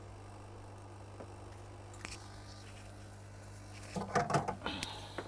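Small clicks and taps of hand tools handled on a repair bench, a couple of faint ones early and a busier cluster near the end, over a steady low electrical hum.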